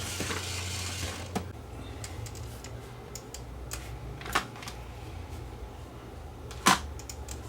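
Scattered sharp plastic clicks and knocks from handling a camcorder and plugging in its AV cable, the loudest near the end, over a low steady hum.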